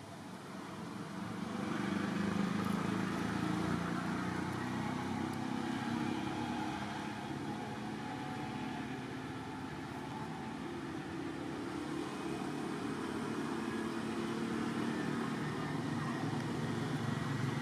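A motor vehicle's engine running steadily, getting louder about two seconds in and holding at that level.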